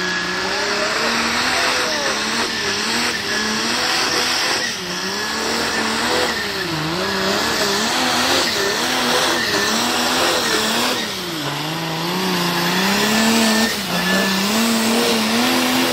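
New Holland pulling tractor's diesel engine running flat out under heavy load as it drags the weight-transfer sled, its note wavering up and down as the load and wheel grip change.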